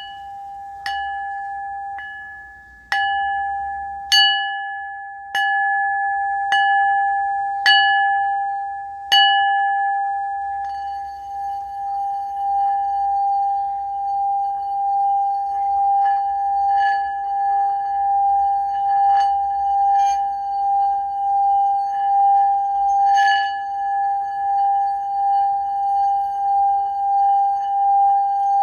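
Singing bowl ringing with one steady tone and its overtones. It is struck about eight times, roughly once a second, over the first nine seconds, then keeps sounding with a gently pulsing swell and a few softer strikes later on.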